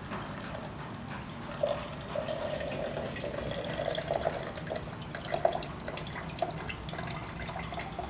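Water pouring in a thin stream from the tap of a tilted drinking-water container into a plastic cup. From about a second and a half in, the trickle carries a clear note for a few seconds.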